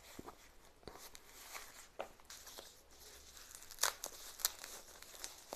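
White protective wrapping torn and crinkled by hand as it is pulled off a small bottle: faint scattered rustles and crackles, loudest a little before four seconds in.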